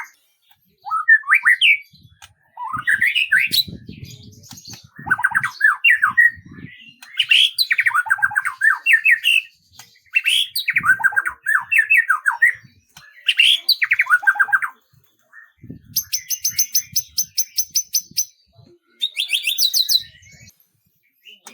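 Bird song: a string of quick, varied warbled phrases with short pauses between them, then near the end two fast, very high rattling trills.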